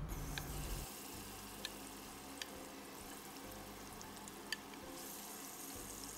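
A metal fork tapping and scraping against a glass bowl while tossing fish pieces in a spice marinade: a few light, sharp clicks over a faint steady hiss.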